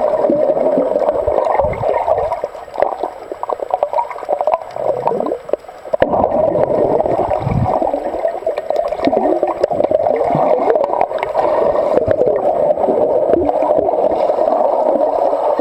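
Muffled underwater water noise picked up by a submerged camera: a steady gurgling wash with scattered clicks and knocks, dipping quieter for a few seconds about a quarter of the way in.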